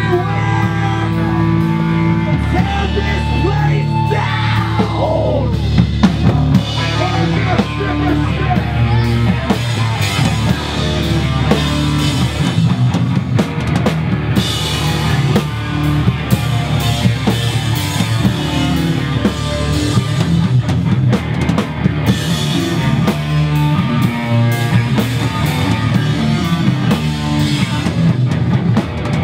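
Hardcore band playing live at full volume: distorted electric guitar, bass guitar and drum kit, with a note sliding down in pitch about four seconds in.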